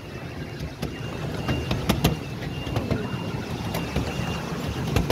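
Miniature steam railway train running along the track, heard from a carriage behind the locomotive: a steady low rumble with irregular clicks of wheels over the rails.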